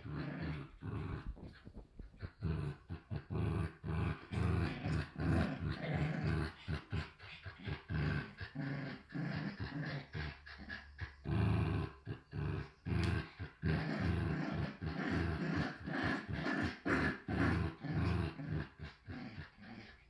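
Two Shiba Inus, an adult and a puppy, play-growling while tugging a rope toy: a near-continuous string of short, low growls, several a second, with a few brief lulls.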